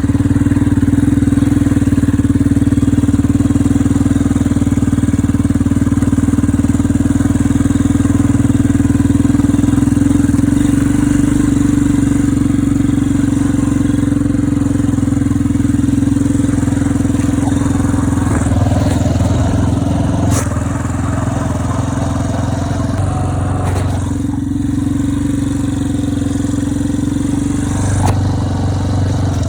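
ATV (quad bike) engine running at a steady pitch while it is ridden through snow.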